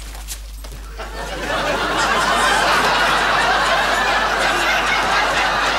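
Studio audience laughing: the laugh breaks out about a second in, swells over the next second and holds steady and loud.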